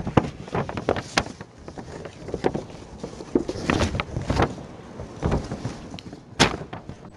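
Scattered clicks and knocks of desk-top handling in a classroom, seeds and utensils being moved about on desks, with one sharper knock about six and a half seconds in.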